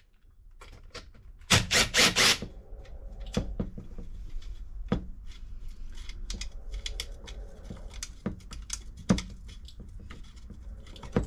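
Cordless impact driver run in a few short rattling bursts about a second and a half in, backing out the muffler bolts on a McCulloch 1-10 chainsaw engine. Then scattered metal clicks and taps as the small parts are handled on the bench.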